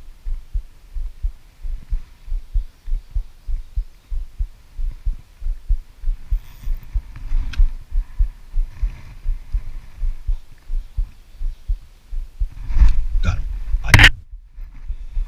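Steady soft low thumping at about three beats a second on an action camera's microphone. About 13 and 14 s in come a few louder knocks and rustles as an arm brushes against the camera.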